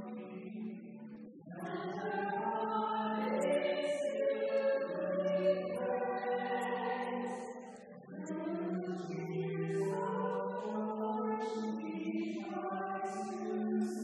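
A group of voices singing a hymn together in long sustained phrases, with short breaks for breath about a second and a half in and again about eight seconds in.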